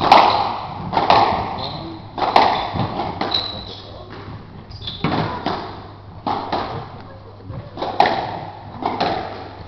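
Squash ball being struck by rackets and smacking off the court walls in a rally: sharp, echoing hits about a second apart, with a pause in the middle. Shoes squeak briefly on the wooden court floor.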